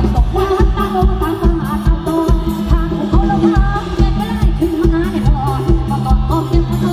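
Live lam sing band playing loud through a big outdoor PA: a singer over a drum kit with a steady pounding kick-drum beat and electric guitar.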